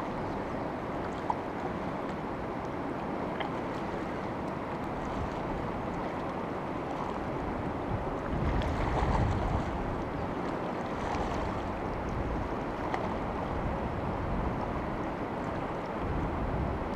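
Rushing river rapids: a steady wash of fast water, with a low rumble swelling about eight seconds in and again near the end.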